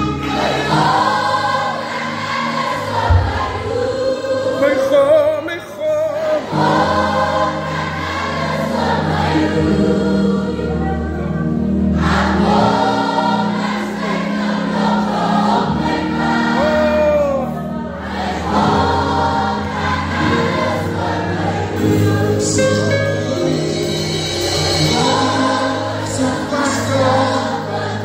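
Gospel worship song sung by many voices together, with electronic keyboard accompaniment holding sustained low notes.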